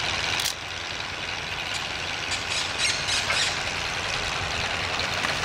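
Steam donkey engine working a log onto a truck: a steady hiss of steam, with a louder hiss that cuts off about half a second in and a run of short squeals between about two and three and a half seconds.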